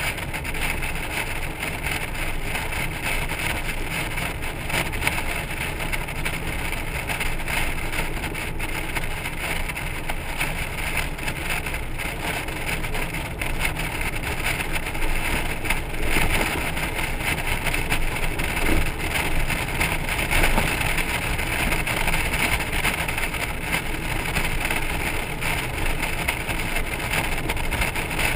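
Honda Gold Wing motorcycle and its trailer cruising at highway speed: a steady rush of wind and road rumble, with wind noise on the microphone.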